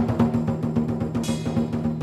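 Lion dance drum beaten in a quick, even rhythm, its low ringing tone carrying under every stroke, with a bright crash that rings on about a second in.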